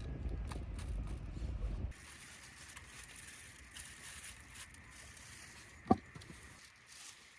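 Wind buffeting the microphone as a low rumble, which cuts off abruptly about two seconds in. Then a quiet outdoor hiss with faint ticks and one sharp knock about six seconds in.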